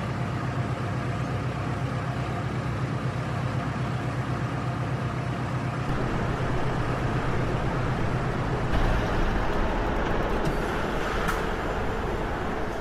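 A car engine running steadily with a low rumble.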